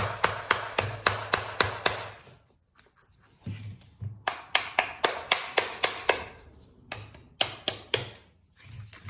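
A hammer tapping on the metal housing of a 1996 Buick rear air suspension compressor, about four strikes a second, in three runs with short pauses between them, to knock the electric motor loose from the compressor housing.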